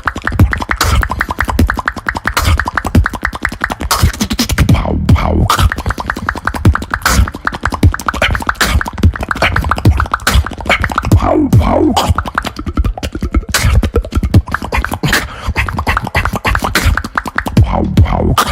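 A person beatboxing: a fast, unbroken run of mouth and tongue clicks and percussive hits over a deep bass line, with a short sliding vocal tone about two-thirds of the way through.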